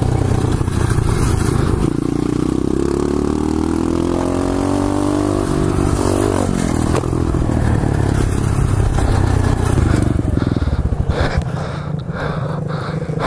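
2015 SSR 125cc pit bike's single-cylinder four-stroke engine running hard under throttle, its pitch rising and falling. From about ten seconds in come a series of sharp knocks and scraping clatter as the bike goes down onto its side in the grass, knocking its fender off, and the engine note drops away.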